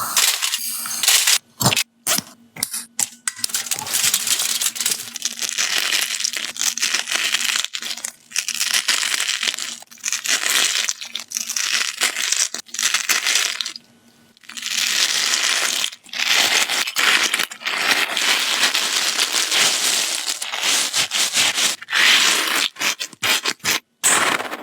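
A squeaky ball being squeezed and handled close to the microphone, giving a dense crackling, crunchy squeak. It stops briefly every few seconds.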